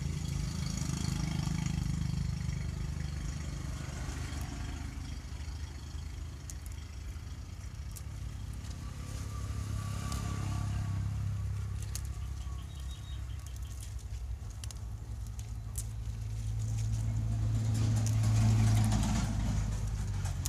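A low engine hum that rises and falls, loudest near the end, with a few faint clicks over it.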